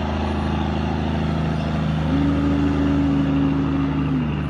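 International 9900i dump truck's diesel engine running steadily as the truck pulls away. A higher steady tone joins about two seconds in and drops away near the end.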